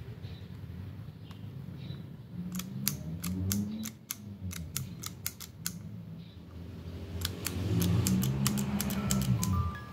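Sharp metallic clicks of a brass lighter's lever and lid being worked, in quick runs of clicks. Chime-like music begins near the end.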